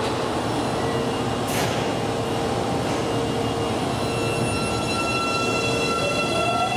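Osaka Metro 24 series subway train's IGBT-VVVF inverter and traction motors whining as the train starts to pull out, over a rumble from the wheels. Steady whine tones fill in from about four seconds in, and one climbs in pitch near the end as the train gathers speed. A short hiss comes about a second and a half in.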